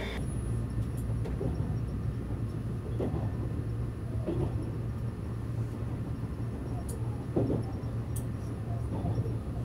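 Steady low rumble and hum of a train carriage running, heard from inside, with a few faint clicks and knocks.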